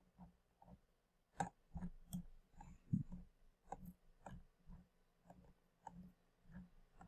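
Faint computer mouse and keyboard clicks and taps, about two a second, a few of them sharper than the rest.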